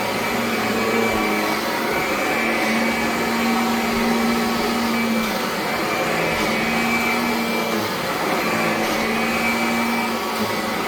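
Kirby Avalir 2 upright vacuum cleaner running over carpet: a steady motor drone with a whine that wavers slightly in pitch every second or two as it is pushed and pulled.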